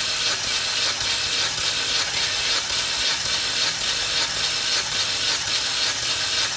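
Daewoo Gentra 1.5-litre B15D2 engine being turned over by its starter motor for a compression test on the third cylinder. A steady cranking churn with an even, rhythmic pulse as the gauge builds to about 14 kg/cm².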